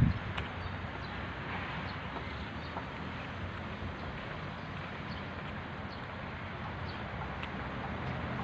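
Outdoor park ambience: a steady low hum of distant road traffic with a few faint bird chirps, and a brief gust of wind on the microphone right at the start.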